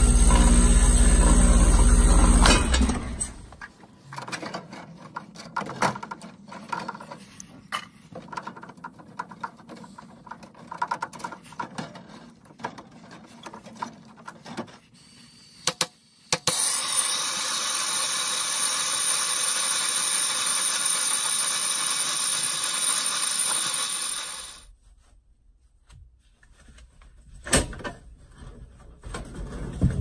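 An outdoor AC condensing unit's compressor and fan running with a steady hum, shutting off about two and a half seconds in as its power is disconnected at the end of a pump-down. Faint clicks and handling noise follow. Then about halfway through a hand torch burns with a loud steady hiss at the indoor coil's refrigerant line for about eight seconds before it cuts off.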